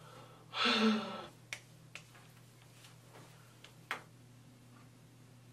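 A woman's short wordless vocal sound with a slightly falling pitch, about half a second in. Then three sharp, separate clicks over the next few seconds, the last one the loudest.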